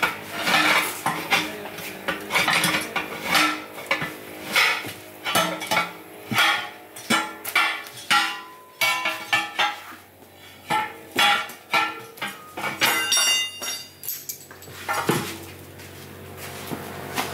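A steel tire iron repeatedly jabbing and prying between a truck tire's bead and its steel wheel rim to work the tire off, clanking metal on metal about twice a second. The rim rings briefly about three-quarters of the way through, and the hits thin out near the end.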